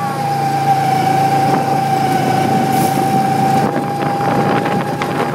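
Two-seat go-kart's small engine running steadily at speed, with a steady high whine over a dense rumble, heard from the seat.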